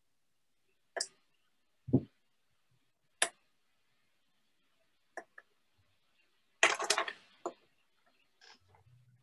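Scattered small clicks and taps from fly-tying tools and materials being handled at the vise: a few single clicks in the first half, then a short cluster of rattling taps about two-thirds through, the loudest sound here.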